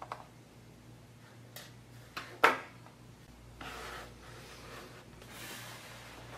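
Hands working on a notebook's drive-bay cover and parts on a wooden table: a few small plastic-and-metal clicks, one sharp click about two and a half seconds in, then two brief scraping slides.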